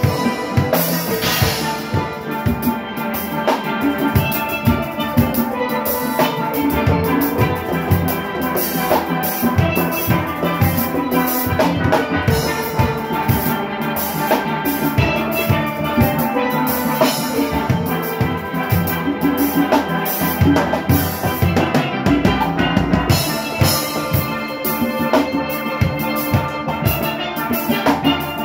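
Steel orchestra playing live: steelpans carry the melody over a steady, driving rhythm from the engine room's drum kit, congas and other percussion.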